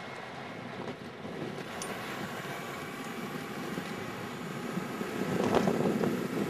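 Wind buffeting the microphone of a moving electric bicycle, over the steady running of its small chain-drive motor and tyres on pavement. The noise swells about five seconds in, with a single knock shortly after.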